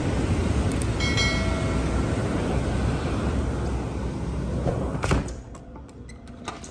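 Loud tornado wind rushing and buffeting the microphone through an open door. About five seconds in a door is shut with a thud, and the storm drops to a much quieter, muffled background.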